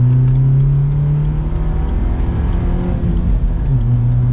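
BMW 1 Series engine heard from inside the cabin under way at speed, a steady drone over road noise, its note climbing slowly. About three and a half seconds in the note breaks and comes back slightly lower, then holds steady.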